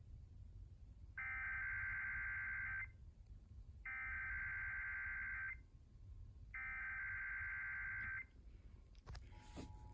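Emergency Alert System S.A.M.E. header: three identical bursts of buzzy digital data tones, each about 1.7 seconds long with about a second between, encoding the test alert's code. About nine seconds in, the steady two-tone EAS attention signal begins.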